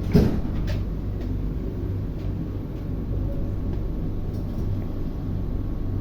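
Singapore MRT train running, a steady low rumble heard from inside the carriage, with a single sharp knock about a quarter second in.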